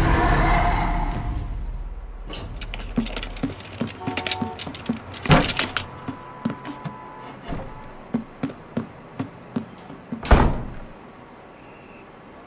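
A loud car noise fades out over the first few seconds. Then come steady footsteps, about two a second, on a wooden floor as a wheelchair is pushed into the room. A door bangs about five seconds in, and it shuts with a loud thunk near the end.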